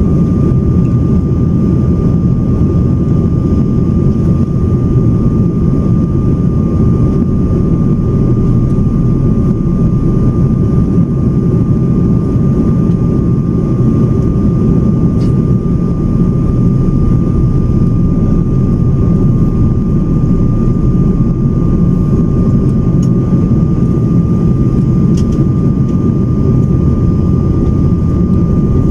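Jet airliner cabin noise on final approach, heard from a window seat beside the wing-mounted engine. A loud, steady low rumble of engines and airflow, with one constant high-pitched whine running through it.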